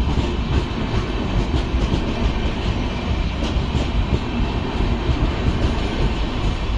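Express train's LHB passenger coaches rolling past close by: a steady rumble of wheels on the track with irregular clicks over the rail joints.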